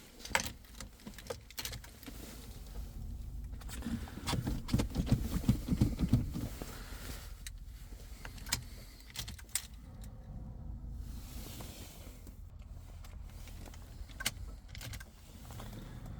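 Keys rattle, then a PSA 2.0 HDi four-cylinder diesel cranks and catches about four seconds in, loudest for the next couple of seconds. It then settles into a steady cold idle with strong diesel knocking, the sign of a cold start at −7.5 °C.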